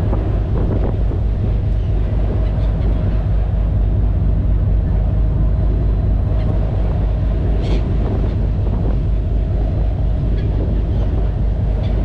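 Passenger ferry's engine running with a steady low rumble and a faint steady hum, mixed with wind buffeting the microphone on the open deck.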